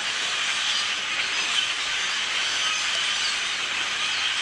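A large flock of birds chirping in the trees, many overlapping calls blending into a steady din.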